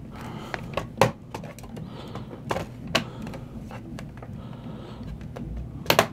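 Plastic wrist rest of a Compaq Presario 1810 laptop being pressed down by hand, its clips snapping into place: a handful of sharp plastic clicks, the loudest a double click near the end.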